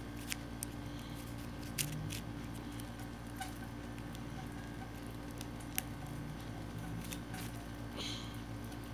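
Scattered light clicks and taps of small objects being handled by hand, with a short rustle near the end, over a steady low hum.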